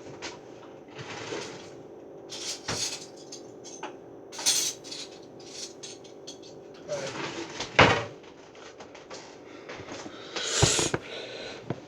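Kitchen handling sounds: a few knocks and clatters of doors, dishes and cutlery being moved, over a steady low hum.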